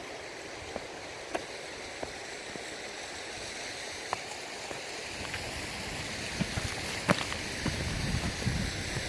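Walking outdoors on a stony path: a few light footstep clicks and scuffs over a steady rushing background. A low rumble builds near the end.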